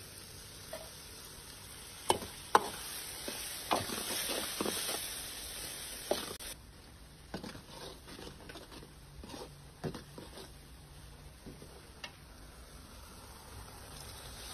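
Tomato-onion masala sizzling in hot oil in a stainless steel pan, with a metal spoon clinking and scraping against the pan as it is stirred; the sharpest clinks come about two seconds in, with more in a cluster soon after.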